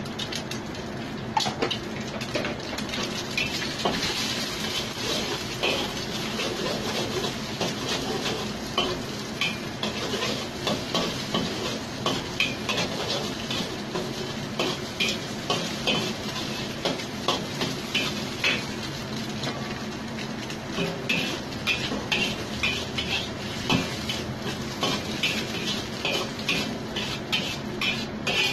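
Eggs sizzling in hot oil in a wok while a metal spatula scrapes and taps against the pan, scrambling them, with frequent short scrapes over a steady sizzle.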